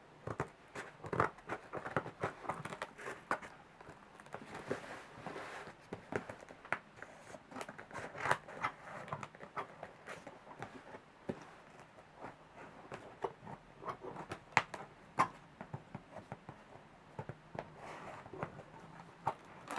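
Cardboard shipping box being opened by hand: irregular crackles, scrapes and snaps of cardboard flaps and packing handled over many seconds.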